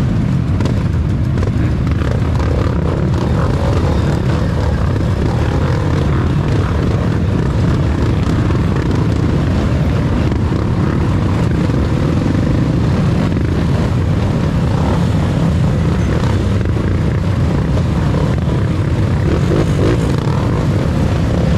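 Dirt bike engines running together in a steady, loud mix.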